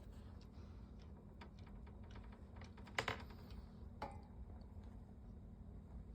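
Faint, scattered small clicks and scratches over a low steady hum. The sharpest click comes about three seconds in and another about a second later.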